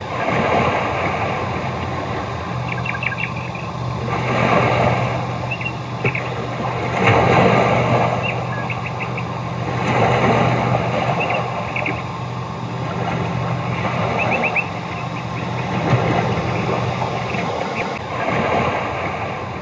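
Outdoor ambience: a rush of noise that swells and fades every few seconds over a steady low hum, with short clusters of high chirps scattered through it.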